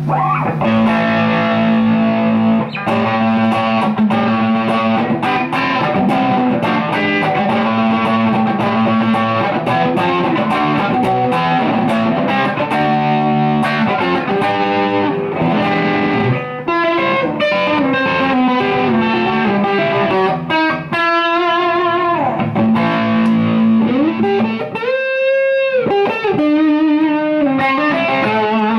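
1962 Gibson ES-330 hollow-body electric guitar played through an amplifier with an overdriven tone: flowing single-note lines mixed with chords, with a wide string bend held with vibrato about 25 seconds in.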